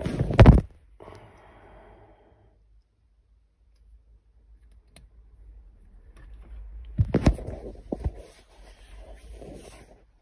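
Clicks and knocks of hand work fitting a steering column lock emulator: one loud knock at the start, a soft rustle just after, then a cluster of sharp clicks and handling noise over the last few seconds.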